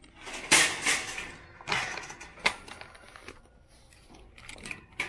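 Wire shopping cart being pulled out of a nested row, rattling and clanking, with a sharp knock about two and a half seconds in and a few lighter clicks near the end.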